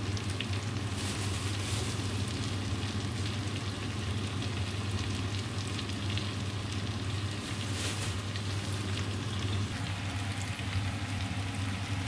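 Potatoes and mushrooms sizzling steadily in hot oil in a frying pan. The sizzle flares up louder a couple of times as frozen chopped dill is sprinkled onto the hot food.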